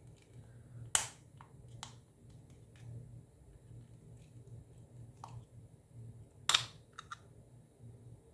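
Sharp clicks and snaps of hard plastic as the broken top piece of a phone charger's plastic case is pushed and fitted into the case: a handful of single clicks, two of them louder, about a second in and later on.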